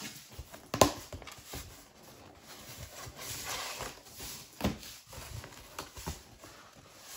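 Cardboard delivery box being opened by hand: a sharp knock about a second in, then the scrape and rustle of the cardboard flaps being pulled apart and folded back, with a few more knocks.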